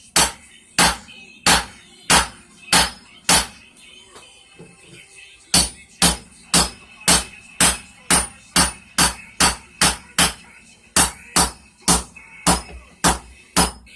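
A hand hammer striking a hot railroad spike on an anvil in steady rhythmic blows, forging and spreading the steel into a knife blade, with a faint metallic ring between strikes. A short run of blows stops for about two seconds, then the hammering resumes at a slightly faster pace of about two blows a second.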